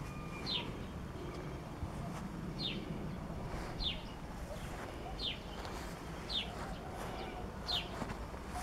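A small bird repeating a short, high call that falls in pitch, six times, about one to two seconds apart, over a low outdoor background rumble.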